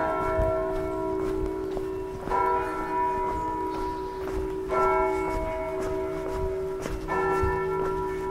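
Church bells ringing in a peal, a fresh strike about every two and a half seconds, each ringing on over a steady hum from the bells before.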